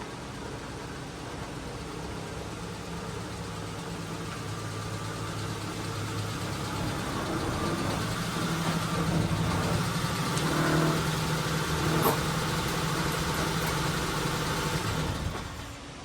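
A car engine running steadily, getting louder toward the middle, with a sharp click about twelve seconds in. The engine sound drops away shortly before the end.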